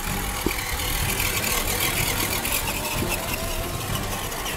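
Electric RC crawler driving through a muddy puddle: water splashing around the wheels, loudest in the first half, over the whine of its electric motor and gears.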